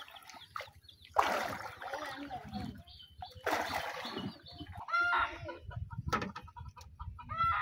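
Wooden paddle strokes splashing through water, one about a second in and another at about three and a half seconds. From about five seconds a chicken clucks in short calls.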